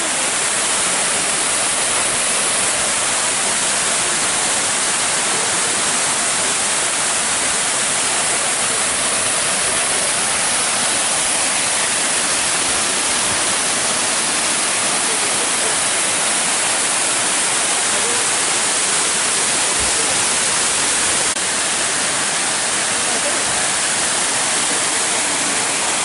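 Waterfall rushing: a loud, steady wash of falling water crashing onto rock, unbroken throughout.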